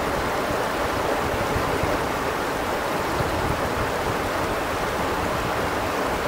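Shallow rocky river rushing steadily over stones.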